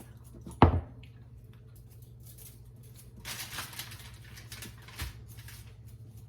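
Food-preparation handling at a kitchen counter: a single sharp thump about half a second in, then soft rustling and patting noises, over a steady low hum.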